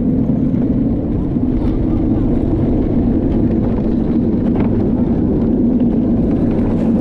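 Gravity luge cart rolling down a concrete track, heard from on board: a loud, steady rumble of the wheels on the concrete with a low hum.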